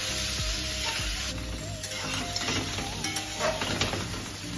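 Food sizzling in a frying pan of hot butter, garlic and oil, with the scrape of a metal spatula stirring it.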